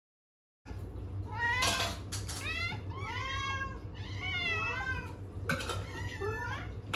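Several house cats meowing, their long, rising and falling calls overlapping, starting about half a second in: hungry cats begging for their meal.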